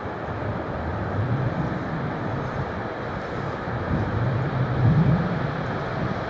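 Electric train passing on the track: a steady rumble and rush of wheels on rail, loudest about five seconds in.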